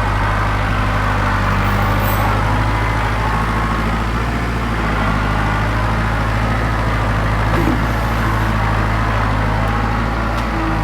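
A vehicle engine idling steadily: a continuous low drone with no revving or changes.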